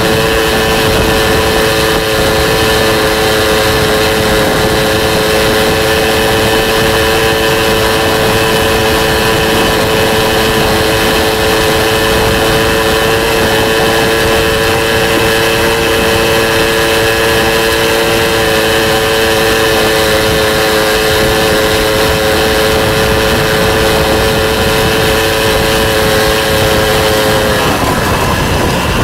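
Small motor vehicle's engine running at a steady high speed, with wind rushing over the microphone. Near the end the engine note drops as it slows.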